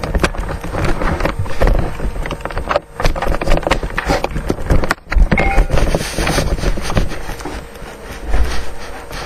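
A dense, irregular clatter of knocks and clicks, with two brief drops near three and five seconds in.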